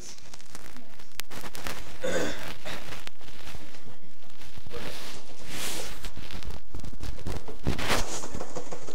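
Close, continuous crackling and rustling, with a few short breathy hisses.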